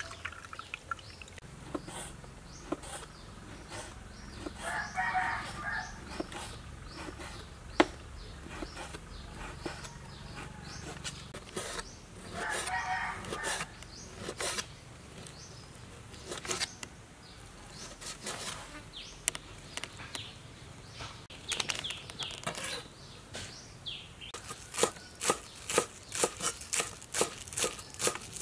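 A kitchen knife cutting on a wooden chopping board in scattered strokes, with a rooster crowing twice in the background. Near the end the knife chops green onions in a steady run of about three chops a second.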